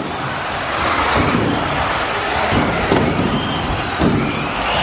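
Electric 1/10-scale RC buggies, among them a Team Associated B5M, racing on an indoor carpet track. Their motors and tyres make a dense whirring noise that swells and fades as the cars pass.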